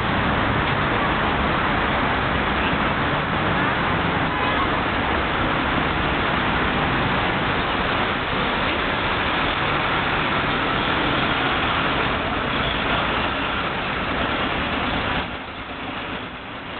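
City street traffic noise, with cars driving past, steady and fairly loud, easing off somewhat near the end.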